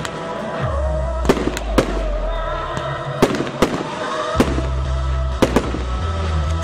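Fireworks display: about seven sharp bangs of shells and rockets going off at uneven intervals, over loud music with a heavy, steady bass.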